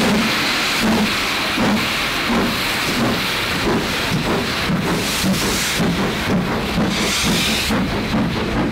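GWR Castle-class 4-6-0 steam locomotives passing slowly one behind another, working gently with slow, even exhaust beats. Steam hisses throughout, loudest near the start and again about seven seconds in.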